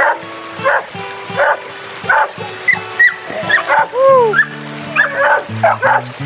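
A dog barking over and over, in short barks about every half second to a second, with background music underneath.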